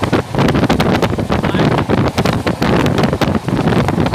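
Wind buffeting the microphone at the window of a moving passenger train, over the train's steady running rumble, with irregular loud gusts and knocks throughout.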